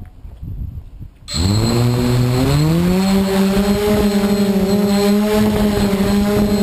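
QAV500 quadcopter's four brushless electric motors and propellers spinning up from rest about a second in, the whine rising in pitch for a couple of seconds and then holding steady at throttle.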